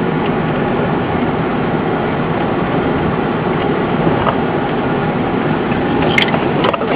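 A Ford 15-passenger van driving up an unpaved dirt fire road, heard from inside the cabin: a steady noise of engine and tyres on dirt, with one sharp click about six seconds in.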